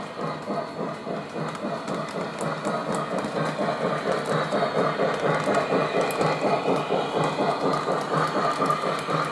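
Lionel O-gauge model train running along the track as it comes closer, a fast, even rhythm of wheel and motor noise with light clicks, growing louder.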